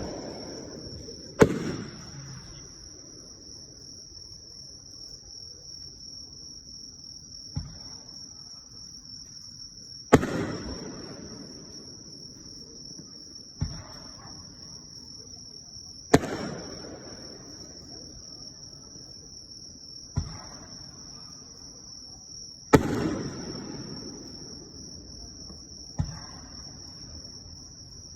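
Aerial fireworks shells bursting: eight bangs a few seconds apart, each followed by a fading rumble, two of them smaller. Under them runs a steady high-pitched chirring of insects.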